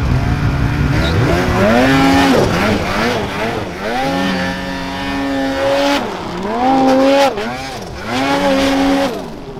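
Snowmobile engine revving up and easing off again and again as the sled pulls away through deep snow. Its pitch climbs and drops with the throttle about four times, and it gets fainter near the end.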